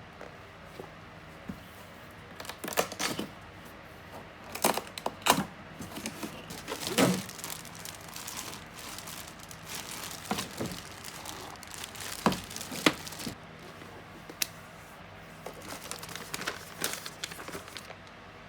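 Crinkling and rustling of something being handled, with irregular sharp crackles that are loudest about five and seven seconds in. A faint steady hum sits underneath.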